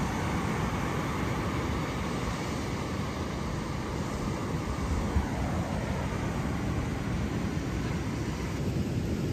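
Steady rushing roar of wind buffeting the microphone over breaking surf.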